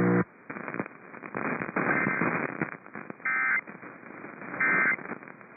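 Weather radio reception hiss and crackle after the warning voice ends, with three short bursts of data tone a little over a second apart: the SAME end-of-message code that closes the National Weather Service warning.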